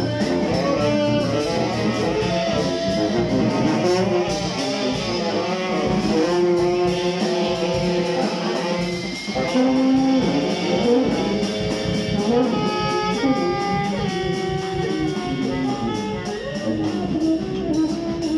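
Live jazz from a small band of saxophones, sousaphone and drum kit, with several horn lines moving at once over the drums.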